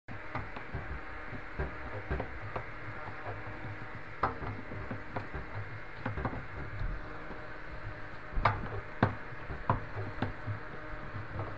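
Scattered light clicks and knocks of hands and tools working on a front-loading washing machine's door seal and drum opening, over a steady low hum.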